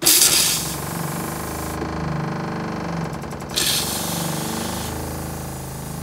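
RV toilet flushing with pink RV antifreeze spraying into the bowl, starting suddenly and coming in two spurts. Under it the camper's 12-volt water pump hums steadily, pushing antifreeze through the plumbing lines to winterize them.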